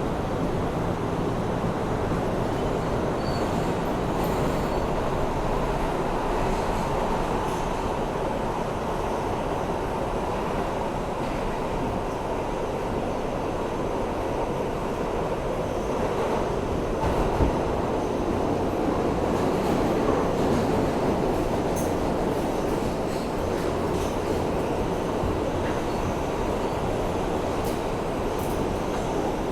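Inside a New York City Subway R160A-2 car running at speed through the tunnel: a steady rumble of wheels on rail with some wheel squeal and one sharper knock about two-thirds of the way through.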